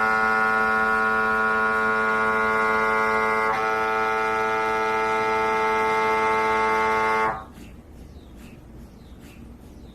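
MRI scanner's gradient coils running a scan sequence: a loud, steady buzzing tone with many overtones. It shifts slightly about a third of the way in, then cuts off suddenly about three-quarters of the way through, leaving only faint background noise.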